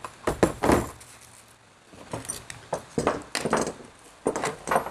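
Hard plastic tool carry case and hand tools being handled on a wooden workbench: a string of knocks and clatters, loudest about half a second in.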